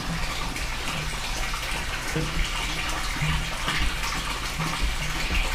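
Steady sound of running, splashing water.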